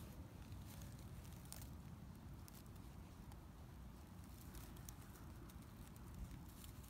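Faint, scattered crackles of a sulcata tortoise's feet and plastron moving over dry grass and pine needles, over a low steady rumble.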